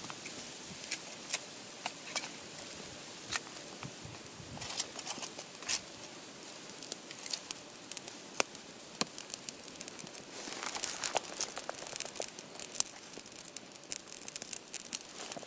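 Kindling twigs catching fire in a small metal wood-burning stove: scattered sharp crackles and pops over a soft hiss. The crackling grows denser and louder about ten seconds in as the flames take hold.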